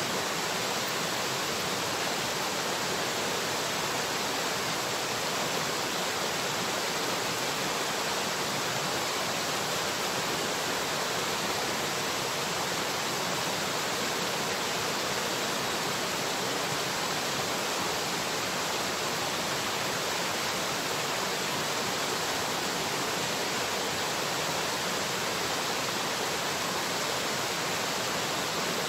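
Steady rushing noise of running water, even and unchanging throughout.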